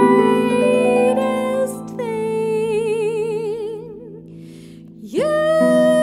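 Concert pedal harp playing sustained chords while a woman sings over them. In the middle she holds one long note with an even vibrato; near the end the voice slides up into a new phrase as fresh harp chords are plucked.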